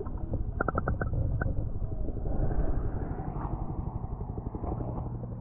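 Lake water heard through a GoPro's waterproof housing held underwater: a muffled rumble with a few quick bubble pops about a second in, then a rushing wash of water noise as the camera is brought up to the surface.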